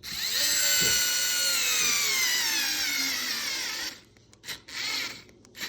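Worx WX240L1 4-volt cordless screwdriver driving a small Phillips screw into red oak: its motor and gears whine loudly, the pitch falling steadily as the motor slows, and it stops abruptly about four seconds in. A few faint knocks follow.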